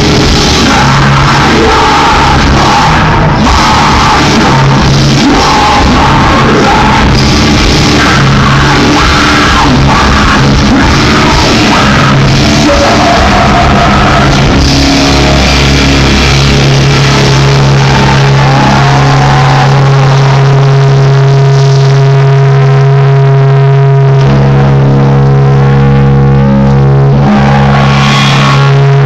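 Metal band playing live, very loud: distorted guitars, bass and drums in a dense, heavy section. Over the second half the playing thins out to long held notes.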